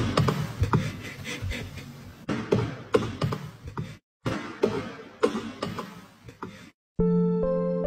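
Rapid, irregular clicking and tapping of a small animal's feet on a hardwood floor, broken by two brief silences. Piano-like music starts near the end.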